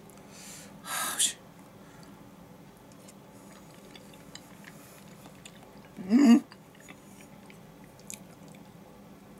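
A person eating a rice bowl with chopsticks: quiet chewing and small scattered clicks, a breathy rush of air about a second in, and a short, loud voiced sound from the eater about six seconds in.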